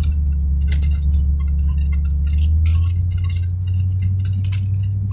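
Steady low rumble of a vehicle driving, heard from inside the cabin, with light clicks and rattles scattered throughout.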